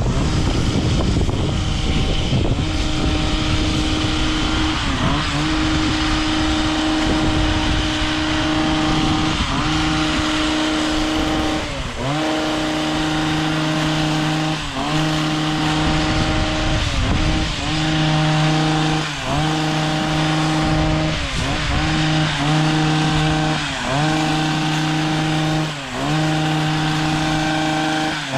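Chainsaw's two-stroke engine running at high revs, its pitch dipping briefly and recovering about every two seconds as it takes and sheds load.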